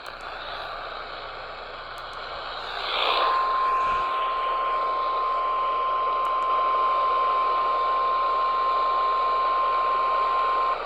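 Radio hiss and static, then about three seconds in a single steady alert tone of an Emergency Alert System broadcast, the NOAA Weather Radio-style 1050 Hz warning alarm. The tone holds unchanged over the hiss for about seven and a half seconds and cuts off just before the end.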